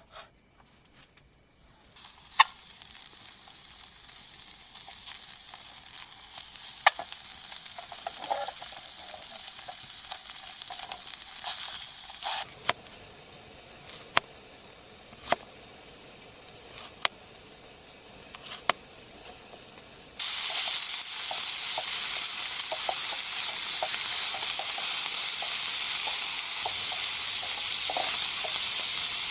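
Food sizzling as it fries in a pan, with scattered sharp clicks. The sizzle starts suddenly about two seconds in and turns louder about two-thirds of the way through.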